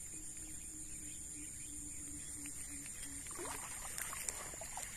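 Faint outdoor swamp ambience: a steady high-pitched insect drone, with a faint pulsing low hum over the first three seconds. A little past the middle come a short rising sound and scattered small clicks and rustles of handling.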